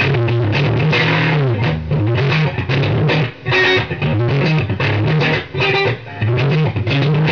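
Electric guitar playing a heavy, low riff with bent notes. The playing breaks off briefly a little after three seconds and again just before six seconds.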